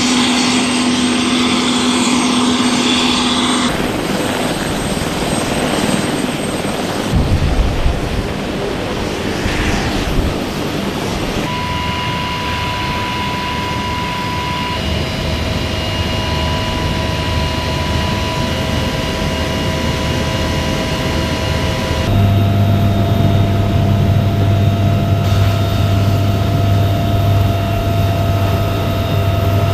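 Military helicopters' turbine engines and rotors running, across several edited shots from the flight line and from inside a cockpit. There is a steady whine, and from about two-thirds of the way in a strong low hum.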